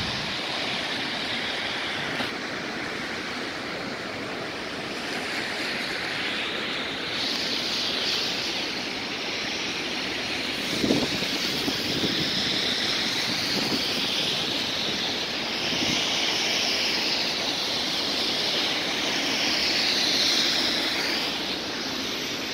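Steady rushing noise of city road traffic on a snowy street, with a few soft knocks near the middle.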